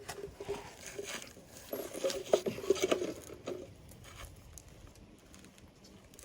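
Socket wrench with an extension clicking and clinking against metal as it is worked on a stuck oil drain plug: a burst of sharp metallic clinks and rattles in the first few seconds, loudest about two to three seconds in, then quieter.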